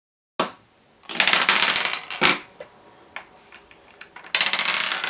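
Hard plastic Rubik's Cube pieces clattering and rattling, in two bursts of quick clicks with single sharp clicks between, as the cube is handled and taken apart.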